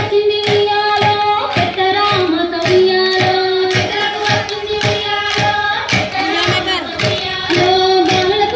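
Indian song with female voices singing a sustained melody, over a steady beat of sharp clicks about three a second.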